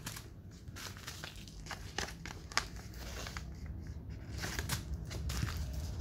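Paper rustling and crinkling in short, irregular bursts as a printed sheet is handled and marked with a pen, with one sharper click a little before the middle.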